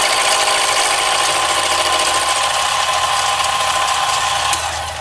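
Power tool machining a lip into a metal disc brake bracket: a steady cutting noise with a whine. It stops about four and a half seconds in with a click, leaving a low hum.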